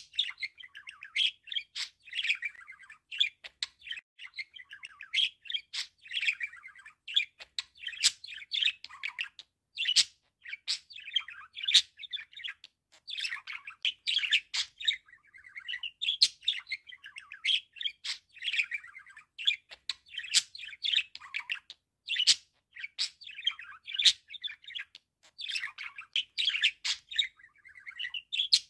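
Budgerigar warbling: a fast, continuous run of chirps, chatter and sharp clicks, broken by short pauses every second or two.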